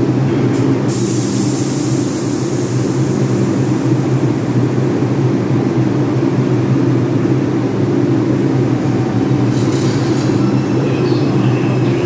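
Steady rumble and hum of a New York subway train of R142 cars in an underground station, with a hiss starting about a second in and lasting a few seconds; the train begins to pull out near the end.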